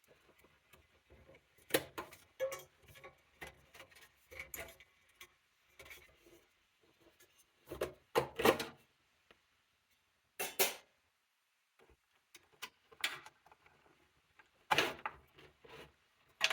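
Desktop computer case and parts being handled and taken apart: irregular plastic and metal clicks, knocks and short scrapes, with louder clusters of handling noise about halfway through and near the end.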